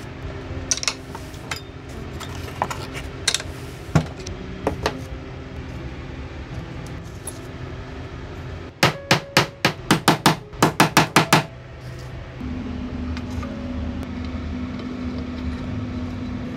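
Scattered light knocks of wooden handle blocks on a workbench, then about a dozen quick, sharp hammer strikes on wood in the middle. A steady motor hum sets in after that.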